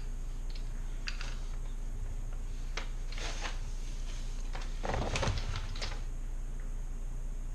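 Rummaging: a handful of brief knocks, clatters and rustles of things being moved and handled, the loudest about five seconds in, over a steady low hum.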